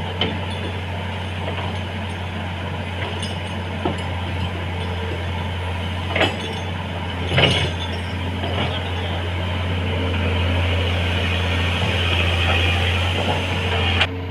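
Komatsu excavator's diesel engine running steadily with a low drone, the engine swelling louder for a few seconds after about two-thirds through. A few sharp metallic knocks and clinks sound over it, the loudest about halfway through.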